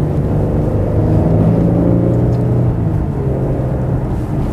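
Maserati Quattroporte's V6 engine pulling the car under acceleration, heard from inside the cabin. Its note drops a step about a second in as the automatic gearbox shifts up.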